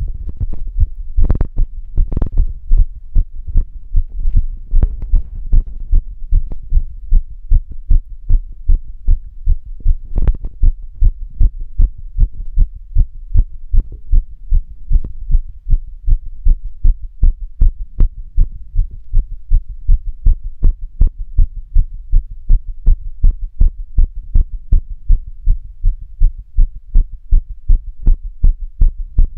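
A human heartbeat heard close up, beating in a steady, even rhythm of low, thudding pulses. There are a few sharper knocks about one and two seconds in, and again around ten seconds in.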